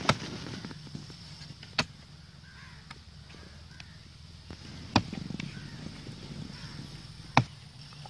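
A hand chopping tool striking tree roots in the dug-out soil at a trunk's base: four sharp blows at uneven intervals, the first and third followed by a short low rumble.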